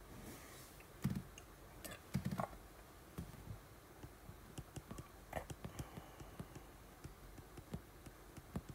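Stylus writing on a tablet screen: a run of light, irregular taps and clicks as the pen strokes out handwriting, with two louder short sounds in the first few seconds.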